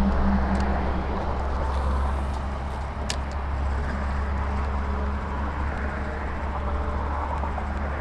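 Steady low rumble of road traffic on the bridge overhead, with a single sharp click about three seconds in.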